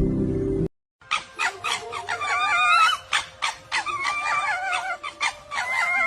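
Repeated animal calls with a wavering pitch, mixed with a run of sharp clicks, starting about a second in after a brief silence.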